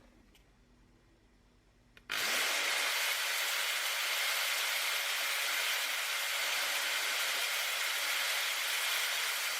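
A faint low hum, then about two seconds in a loud, steady hissing noise starts abruptly and keeps on evenly.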